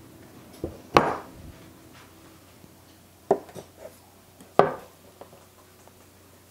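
Sharp clunks of a glass baking dish and kitchen tools being set down on a wooden butcher-block counter. There are about six knocks, the loudest about a second in and another strong one about four and a half seconds in.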